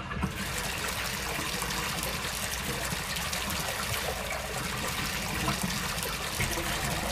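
Steady sound of running water trickling and splashing, the water-flow sound of a water-treatment plant animation at its gravity filter. The hiss brightens about a quarter of a second in.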